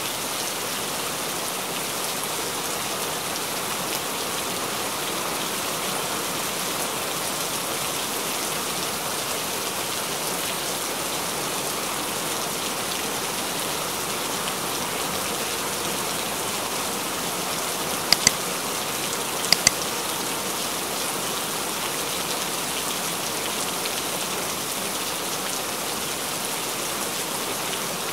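Steady rain falling, a dense even hiss with no letup. About two-thirds of the way in, two quick double clicks about a second and a half apart cut through it.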